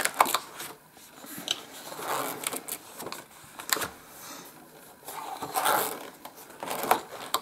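Pages of a spiral-bound colouring book being turned and smoothed flat by hand: several rustles of paper with sharp flicks as the pages fall.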